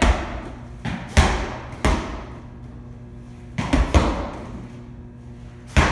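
Medicine balls thrown hard against a wall during oblique slams: about seven heavy thuds at uneven intervals, each echoing briefly in the room.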